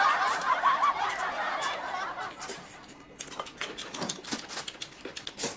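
Noodles being slurped up with chopsticks, a loud hissing suck that fades out over the first two seconds or so, followed by quieter chewing with scattered soft smacks and clicks of eating.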